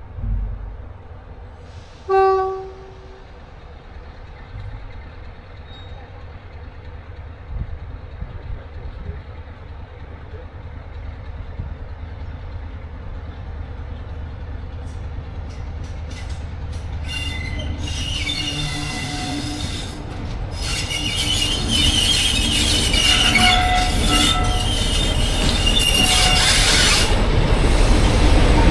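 Diesel train giving one short horn blast about two seconds in, then approaching with a steadily growing rumble; from about two-thirds of the way through, high ringing wheel squeal joins the rising noise.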